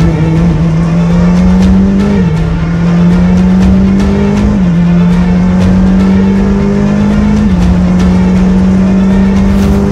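Ferrari 458 GT3's V8 engine, heard from inside the cockpit, accelerating hard with three upshifts. The pitch climbs through each gear and drops at each shift, about two, four and a half, and seven and a half seconds in.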